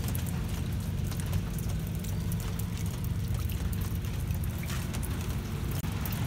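Steady low hum with an even rushing noise over it, an outdoor background drone that holds level throughout, with a few faint ticks.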